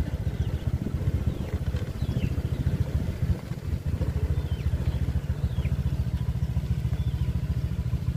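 Small motorcycle engine running steadily at low speed with an even, rapid chug. A bird repeats a short falling whistle every second or so.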